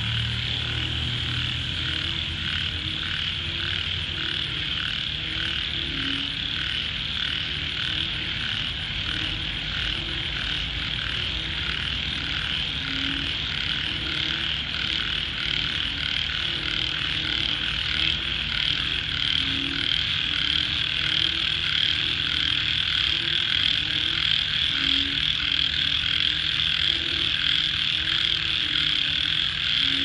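A frog chorus calling at night: a dense, high-pitched pulsing chorus with lower single croaks repeating irregularly about once or twice a second. It grows a little louder in the second half.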